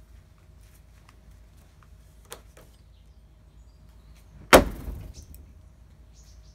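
A thrown axe striking the wooden target: one sharp hit about four and a half seconds in, ringing out briefly.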